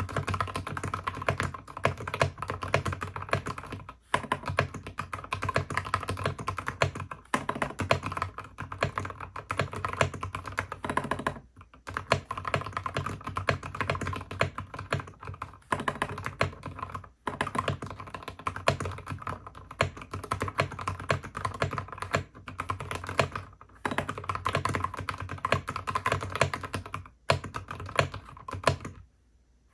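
Fast typing on a mechanical keyboard: a dense run of key clicks, broken by brief pauses every few seconds.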